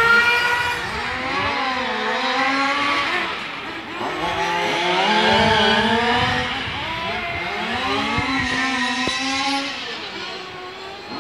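Several radio-controlled F1 model cars racing, their motors overlapping and rising and falling in pitch as they speed up and slow down through the corners.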